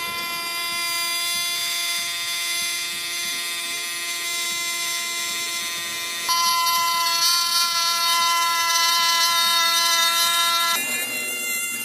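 Handheld rotary tool with a small cut-off disc running at a steady high whine while cutting PVC sheet. The whine gets louder about six seconds in and turns rougher near the end.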